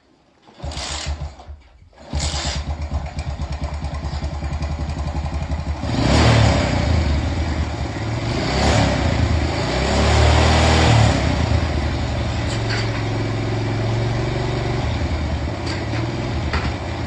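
Kickstarted Honda motorcycle engine sputters briefly about a second in, then catches about two seconds in and runs. It is revved up several times between about six and eleven seconds, then settles back to a steady idle.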